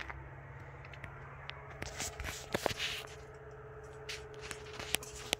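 Rustling and scraping handling noise as the camera is carried and moved around, with scattered clicks and a louder scuffle about two to three seconds in. A faint steady tone runs through the second half.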